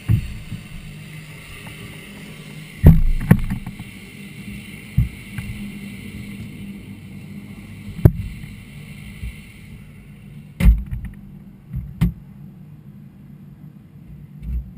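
Knocks and thumps from a parked light aircraft's cockpit and canopy being handled, its engine shut down, the loudest pair about three seconds in. A steady hiss underneath cuts off suddenly about ten seconds in.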